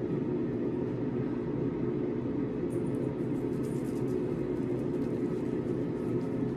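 A steady low droning hum with faint soft rubbing from about three seconds in, as fingers massage cleanser over a wet face.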